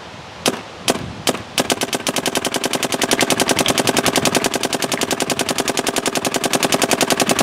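Dye M3+ electronic paintball marker firing: three single shots, then an even, rapid string at about ten shots a second as NXL ramping kicks in.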